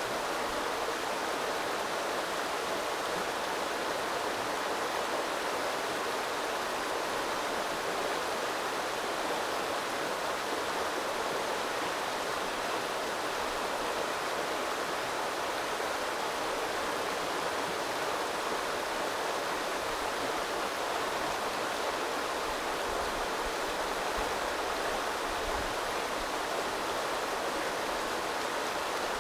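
A small stream running steadily over rocks, a continuous rushing of water.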